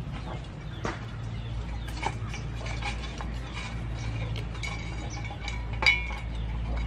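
Outdoor ambience of scattered small chirps, clicks and ticks over a steady low hum. The loudest is a sharp chirp near the end.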